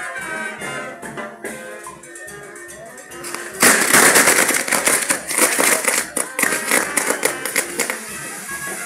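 Music plays, then about three and a half seconds in the fireworks on a castillo fireworks tower suddenly go off in a dense, rapid string of loud cracks and bangs that carries on for several seconds over the music.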